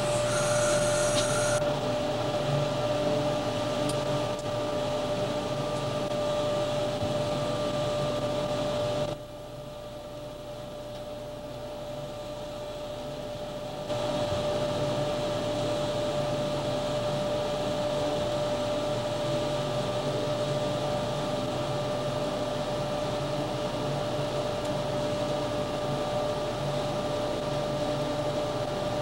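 Steady fan-like whir with a constant high whine inside the cab of an EMD GF6C electric locomotive moving slowly. The sound drops quieter for about five seconds a third of the way in, then comes back.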